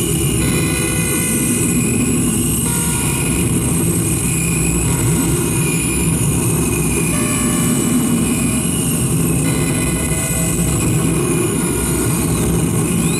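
Live harsh-noise music played on tabletop electronics: a loud, dense rumbling drone with held tones that shift in steps every couple of seconds, and a high whining tone that rises and falls over and over.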